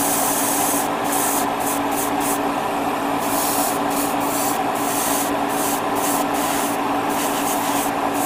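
Airbrush spraying paint in short hissing bursts that start and stop many times as the trigger is worked, over a steady motor hum.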